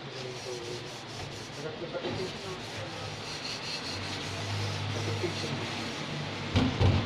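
Sponge scrubbing a metal pot in a stainless-steel sink: a steady rubbing and swishing. Near the end come a few loud knocks as the pot strikes the sink.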